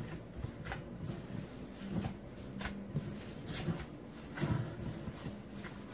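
Hands kneading and pressing red-lentil and bulgur kibbeh dough in a glass bowl, giving soft, irregular knocks and thuds about once a second.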